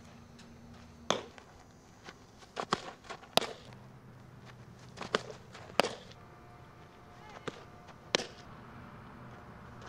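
Softball smacking into leather fielding gloves and a catcher's mitt: several sharp pops, spaced a second or more apart.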